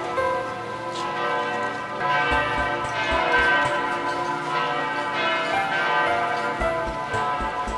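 Church bells pealing, several bells struck in turn so that their ringing tones overlap and hang on between strokes.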